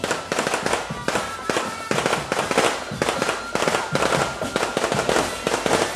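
A string of firecrackers going off in rapid crackling succession, starting suddenly and continuing as a dense stream of bangs.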